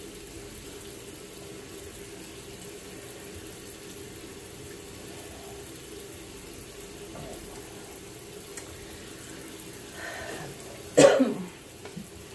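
Steady low hiss of running water, and near the end a person clears their throat with a short, loud cough.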